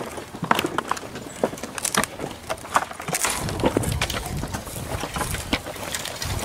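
Irregular knocks, bumps and rustling of a hand-held camera being carried while walking, with footsteps.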